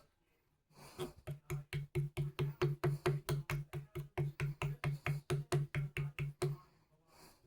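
Rapid, even tapping, about five taps a second for some six seconds, each tap with the same low, hollow ring: glued cocktail sticks being tapped down into a screw hole in a wooden guitar neck. The tapping stops about a second before the end.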